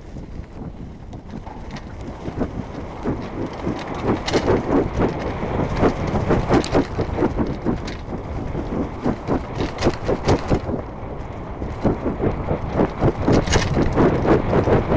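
Mountain bike riding fast over singletrack strewn with dry fallen leaves: the knobby tyres crunch and crackle through the leaves while the bike rattles over the bumps, a dense clatter that grows louder from about four seconds in.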